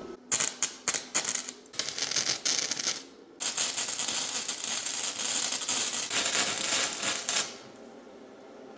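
Electric arc welding on steel: the arc crackles and sizzles in a few short tack welds, then runs as one longer weld of about four seconds, cutting off near the end.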